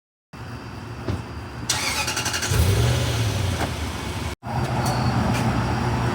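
A car engine running steadily, with a brief swell in level about two and a half seconds in and a sudden cut about four seconds in.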